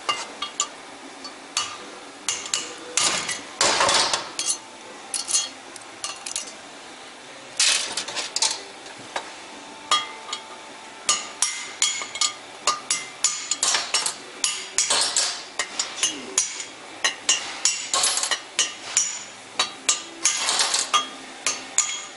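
Sharp metallic hammer strikes on the valves and spring retainers of a VW 1.8T AWP cylinder head, knocking out the old valves without a spring compressor. The blows are irregular, a few at a time at first, then about two a second through the second half.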